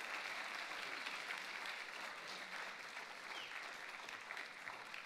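Audience applauding with steady, dense clapping that slowly dies away toward the end.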